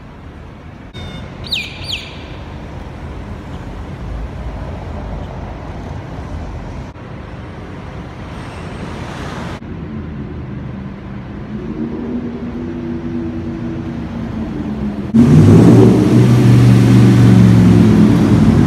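Street traffic hum with two short, high bird chirps about a second and a half in. Later a vehicle engine builds, and from about fifteen seconds a much louder, steady engine runs close by.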